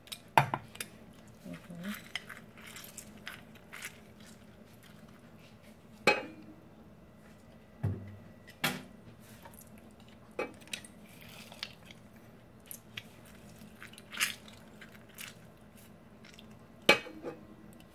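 Scattered sharp clicks and knocks of a hand-held lime squeezer and utensils against a stainless steel bowl as limes are pressed.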